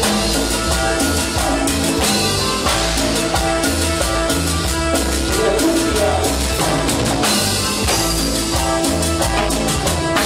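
A live Latin dance band playing with a steady beat: bass, drum kit and congas, with a metal güiro scraped in rhythm.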